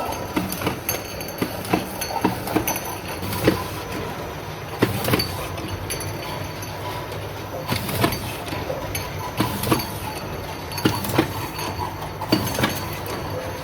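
Cough syrup bottle packing machine running: a steady mechanical hum with many irregular sharp clicks and knocks.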